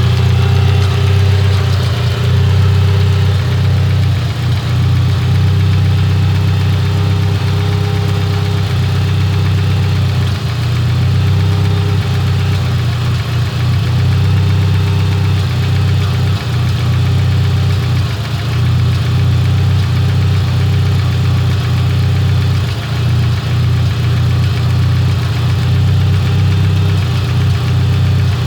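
Car engine idling roughly after a tune-up, with brief irregular dips in its steady note and a terrible noise that the owner takes to be coming from the cylinder head.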